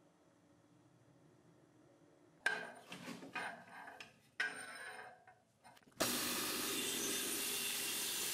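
A couple of seconds of near silence, then a few knocks and scrapes as a weathered wooden lawn mower handle is handled on a bandsaw's steel table. From about six seconds in, a steady hiss of the bandsaw blade cutting through the old wood.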